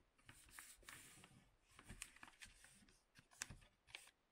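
Faint rustling of paper sheets being handled and folded, with a few light taps and clicks.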